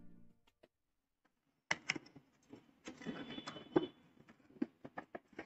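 A cardboard box being handled and a plastic mini chopper slid out of it: irregular taps, clicks and short scrapes, starting a couple of seconds in after the faint tail of fading music.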